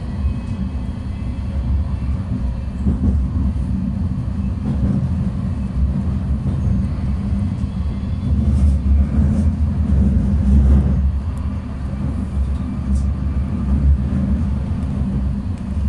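Tram running on its rails, heard from inside the passenger cabin: a steady low rumble of wheels and motors, swelling a little about halfway through, with a few faint clicks.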